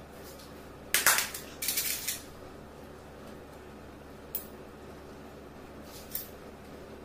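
Coins clinking and rattling against a steel bowl: two loud jangles about a second in, then single short clinks near the middle and near the end.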